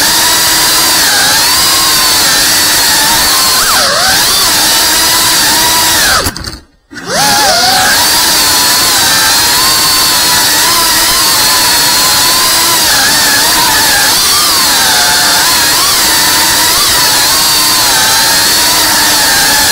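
FPV racing drone's motors and propellers whining, the pitch wavering up and down with the throttle. About six and a half seconds in the motors cut out for a moment, then spin back up with a quickly rising whine.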